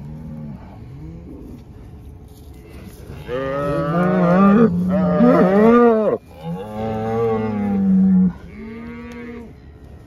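Cattle mooing: faint low calls at first, then a run of long, loud moos starting about three seconds in, and a shorter moo near the end.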